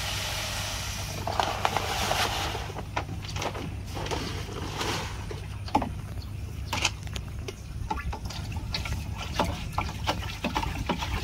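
Granular fertilizer poured from a paper sack into a plastic drum of water: a steady hiss for the first two seconds or so. It then gives way to scattered knocks and light splashes as a PVC pipe is picked up and stirred through the solution near the end.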